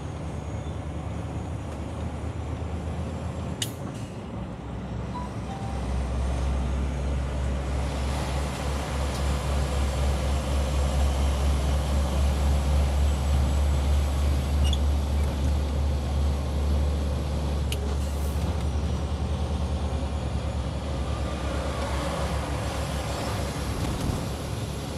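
Truck engine running under way, a deep drone that grows louder from about six seconds in. Two short sharp clicks come about four and eighteen seconds in.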